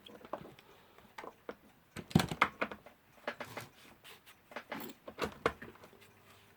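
Small handling clicks and rustles as wires and a mains lead are worked by hand. About six seconds in, a faint steady mains hum starts: the Timlec Lectolarm's synchronous electric clock motor running on power.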